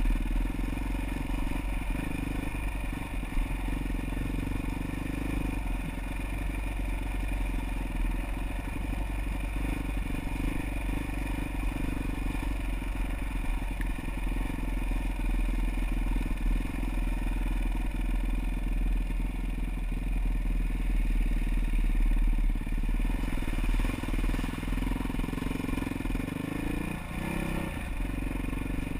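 Off-road motorcycle engine running steadily while being ridden along a mountain trail, its pitch briefly rising and falling near the end.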